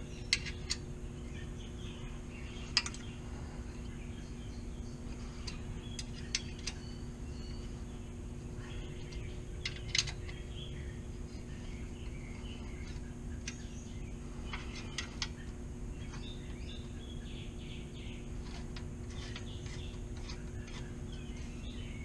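Outdoor ambience of birds chirping over a steady low hum, with a few sharp metallic clicks from a hand tool on the motorcycle's footpeg and exhaust mount fittings.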